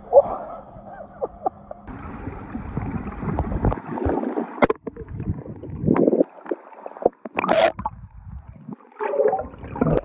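Muffled underwater sound of pool water sloshing and gurgling, picked up by a submerged phone's microphone, with a surge right at the start as it goes under. A few sharp knocks come in the middle and near the end, from the Samsung Galaxy S23 Ultra being dropped and handled on the tiled pool floor.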